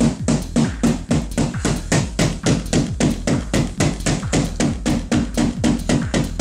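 Background electronic music with a fast, steady beat and a continuous bass.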